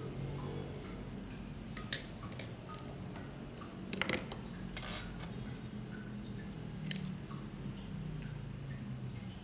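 Small clicks and clinks of metal tools and battery parts being handled and set down on a tile floor, the loudest a short ringing metallic clink about five seconds in, over a steady low hum.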